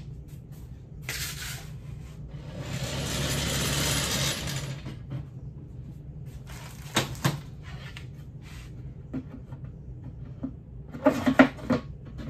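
Cardboard rocket body tubes and a laser-cut plywood fin being handled on a folding table: a long rustling scrape, a couple of clicks, then a quick cluster of knocks near the end as the fin is worked into a slot in the booster tube.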